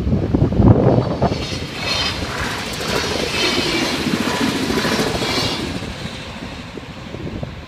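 Bombardier Talent diesel multiple unit passing over a level crossing, its rushing wheel and rail noise swelling about a second and a half in and fading away over the last couple of seconds. Wind buffets the microphone at the start.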